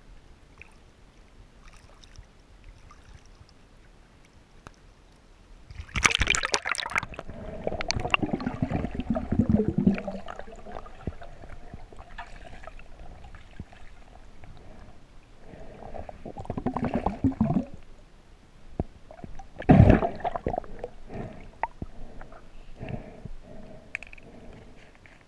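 Water splashing and gurgling around an action camera used by a freediver in a lake. It is quiet at first, then there are loud splashes about six seconds in, again around sixteen seconds, and sharpest near twenty seconds, with sloshing and gurgling between them.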